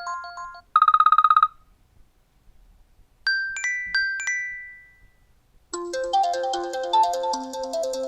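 iOS 7 ringtone previews played one after another on an iPhone: the last notes of one melodic tone, a short rapid buzzing beep about a second in, then four bell-like chime notes that ring out and fade, and another melodic ringtone with chords beginning near the end.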